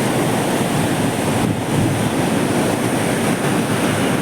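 Steady, loud rush of river water pouring through the open gates of a barrage during a heavy release.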